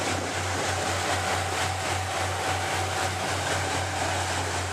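Motorboat engine running at a steady cruising speed, with a low pulsing hum and a steady higher whine over a constant rush of wind and water.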